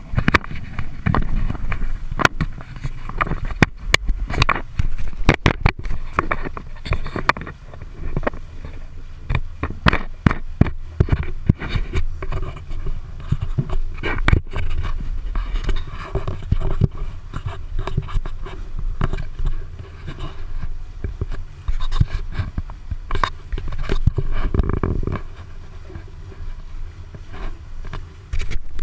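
Wind buffeting the microphone of a GoPro on a moving sailboat: a constant low rumble with many sharp, irregular knocks and rattles.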